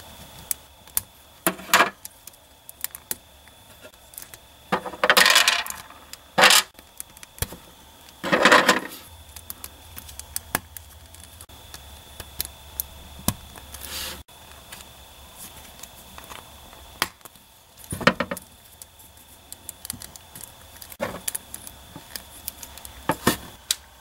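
Hard plastic action-figure armor parts being handled and clicked onto a Robot Damashii Gundam Exia figure: scattered sharp clicks and taps, with a few louder, longer scraping rubs about five, eight and eighteen seconds in.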